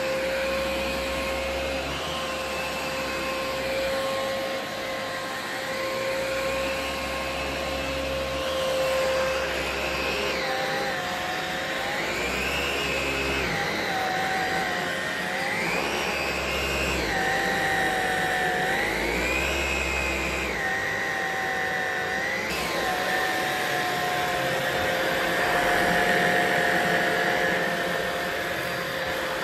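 Philips 7000 Series 7057/01 cordless stick vacuum running steadily, its motor whine stepping up and down in pitch again and again from about ten seconds in.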